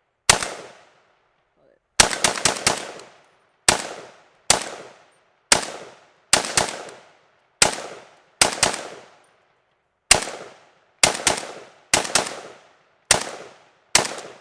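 PSAK-47 GF4 AK-pattern semi-automatic rifle fired as fast as the trigger finger allows in a magazine dump: about twenty shots at an uneven pace. Single shots alternate with quick strings of two to five, each shot trailing off briefly.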